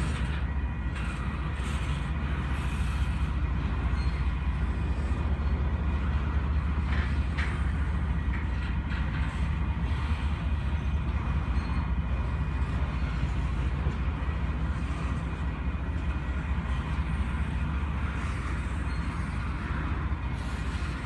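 Freight train passing: a steady low rumble of the cars rolling over the rails, with a few short clanks about a third of the way in.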